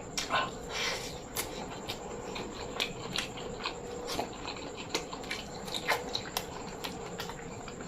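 A person chewing a mouthful of food close to the microphone, with irregular wet lip smacks and mouth clicks.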